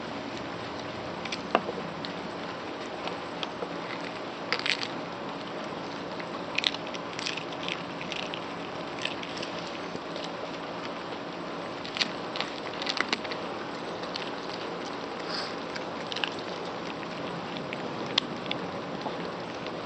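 A small dog chewing a ustipak, a fried dough fritter: crisp, irregular crunches and clicks of teeth every second or two, over a steady background hum.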